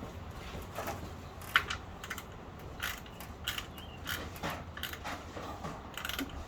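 Irregular light clicks and clinks of small metal parts being handled and rummaged through by hand, as someone searches for matching pieces.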